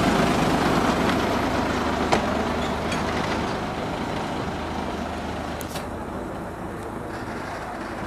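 Small diesel locomotive's engine running as it pulls away along narrow-gauge track, slowly growing fainter, with a few sharp clicks from the wheels on the rails.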